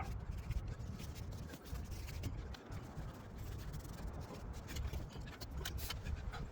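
Irregular rubbing and scraping strokes as asphalt primer is worked onto the roof, over an uneven low rumble of wind on the microphone.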